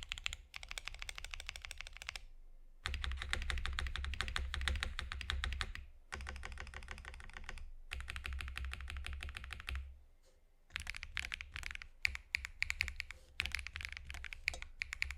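Typing on a Cycle7 custom mechanical keyboard fitted with BSUN Hutt tactile switches: fast runs of keystrokes, broken by brief pauses.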